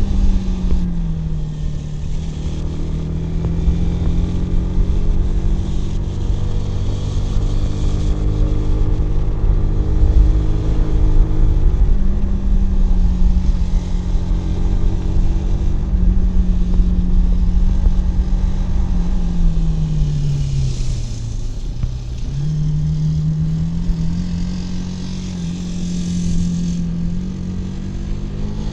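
Kawasaki W175's air-cooled single-cylinder engine running under way, its exhaust note rising and falling with throttle. The pitch drops about three quarters of the way through and then climbs again, over a steady low rush of wind and road noise.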